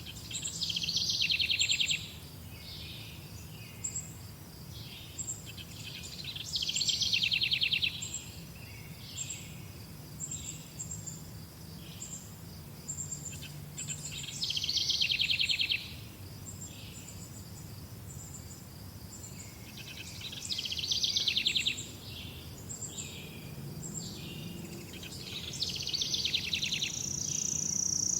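Birds singing: a loud rapid trill about every six or seven seconds, over a steady run of short high chirps about twice a second, with a high drawn-out note near the end.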